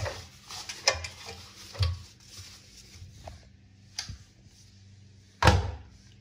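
Textile riding gear being stuffed by hand into a front-loading washing machine's drum: fabric rustling and a few short knocks against the drum and door, the loudest near the end.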